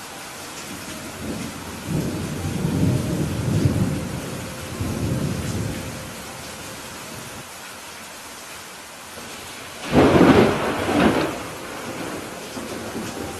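Thunderstorm: steady rain over two low rumbles of thunder, then a sharper, louder thunderclap about ten seconds in that fades off.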